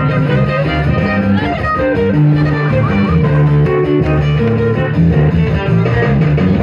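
Live amplified band music: an electric bass plays held low notes under a strummed and picked acoustic guitar, with no singing.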